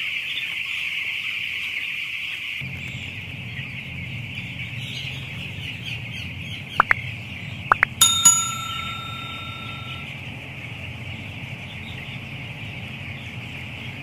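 Broiler chicks peeping in a dense, steady chorus, with a low hum joining in about two and a half seconds in. About eight seconds in, a few sharp clicks lead into a bell-like ding from a subscribe-button sound effect, ringing for about two seconds, the loudest sound here.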